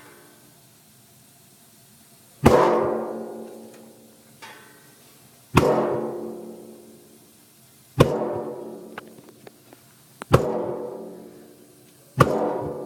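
Water heater tank popping: five loud bangs a couple of seconds apart, each ringing out for a second or two, with a few faint ticks between them.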